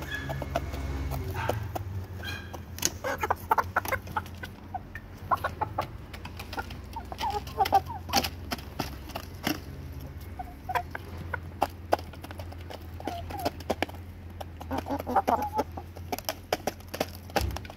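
A flock of chickens clucking softly while they peck grain from a plastic tub. Many quick, sharp taps of beaks striking the grain and the plastic are heard, with short clucks scattered among them.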